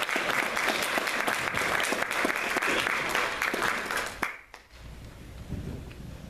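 Lecture-hall audience applauding, stopping fairly abruptly about four seconds in; a quieter low rumble with a few knocks follows.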